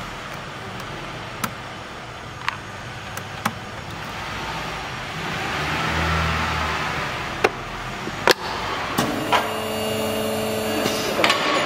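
Workshop noise: a steady hiss with several sharp clicks scattered through it. A low hum swells briefly around the middle, and about nine seconds in a steady machine hum with several pitches starts and holds for a couple of seconds.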